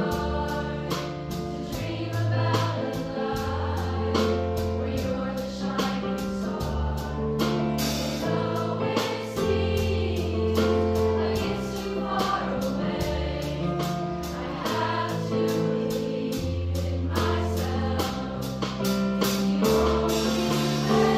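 Treble show choir singing in harmony, with an accompaniment that carries a bass line and a steady beat.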